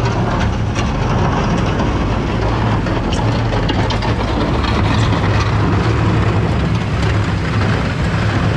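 Farm tractor engine running steadily and loudly close by, with a low hum and a light rattle on top.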